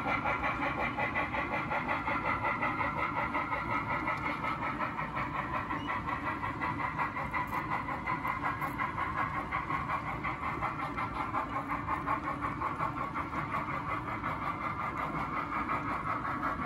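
HO-scale model passenger train running along the track: a steady mechanical running sound with a fast, even pulsing that carries on as the cars pass.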